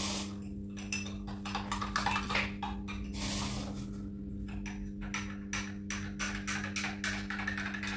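Short, irregular clicks and rustles of an instant three-in-one coffee pouch and cup being handled while coffee is made with hot water, over a steady low hum.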